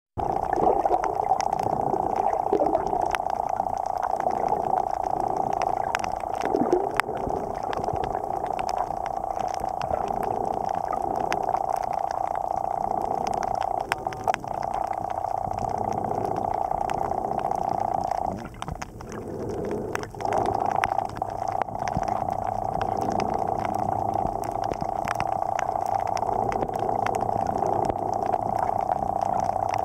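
Underwater ambience picked up by a submerged camera: a steady muffled hum with many scattered faint clicks and crackles. The sound fades briefly a little past the middle.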